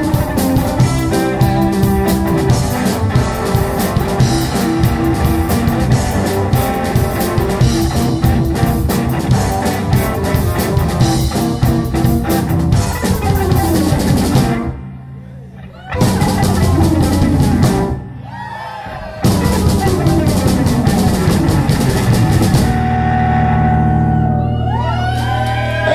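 Live rock band (electric guitar, drum kit and keyboard) playing the end of a song. The full band stops short twice in the middle, comes back in, then holds a long final chord near the end.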